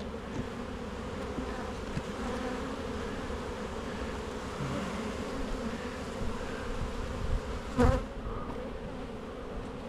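Honey bees buzzing in a steady hum around an opened hive, with one brief knock about eight seconds in.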